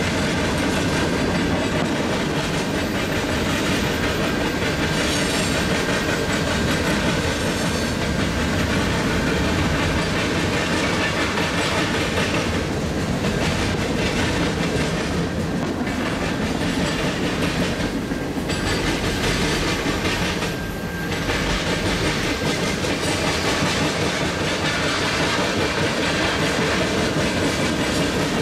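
Freight train cars rolling past at steady speed, a continuous sound of steel wheels on the rails.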